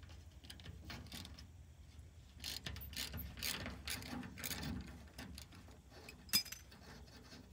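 Ratchet wrench clicking in uneven runs as a torch-heated, rusted bolt on a dirt pan's cutter blade is worked loose, with one sharper click near the end.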